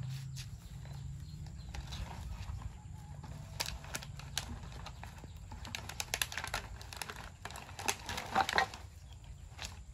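Rustling and crackling of a woven plastic sack and plant stems being handled, in irregular clusters of short clicks, the loudest cluster a little past the middle. A low steady hum runs underneath.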